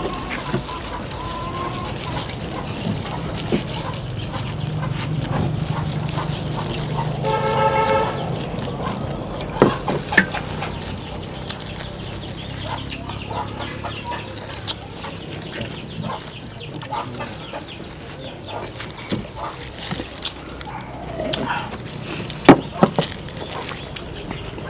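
Chickens, with a rooster crowing once for about a second around seven seconds in. Sharp knocks come about ten seconds in and again near the end, the loudest near the end.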